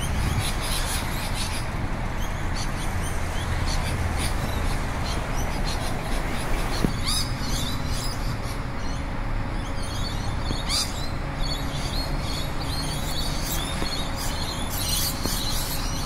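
A flock of rainbow lorikeets calling while feeding, many short, high, overlapping calls over a steady background hiss. A steady low hum joins about seven seconds in.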